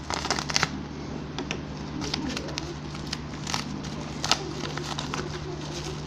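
Crinkling and crackling of a mailer envelope with bubble wrap inside as it is handled, in irregular bunches of sharp crackles, over a steady low hum.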